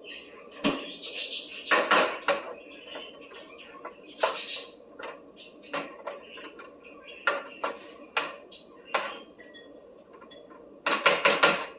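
Kitchen clatter: a utensil knocking and clinking against a cooking pot in irregular sharp clicks, with a quick run of louder knocks near the end.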